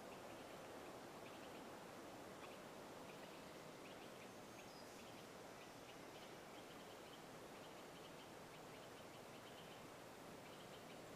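Near silence: a faint steady hiss with faint, short, high bird chirps here and there.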